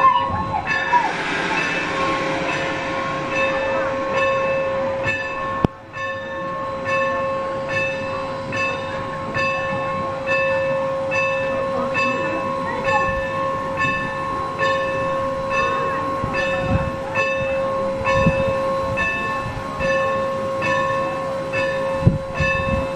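Norfolk & Western 4-8-0 steam locomotive No. 475 working close by, its bell ringing in a steady rhythm of about two strokes a second over the train's running noise, with a short hiss of steam about a second in.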